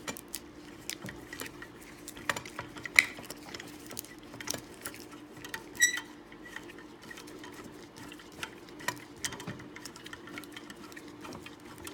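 Small metal clicks and ticks of bolts being reinstalled and threaded into the base of a Bostitch MIII flooring stapler, with a couple of brighter ringing metal clinks about three and six seconds in, over a faint steady hum.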